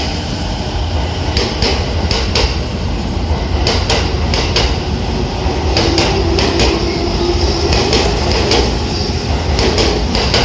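JR Musashino Line 209-500 series electric train running along the platform: a deep, continuous rumble with repeated wheel clacks over the rail joints. A steady hum comes in about six seconds in and lasts a few seconds.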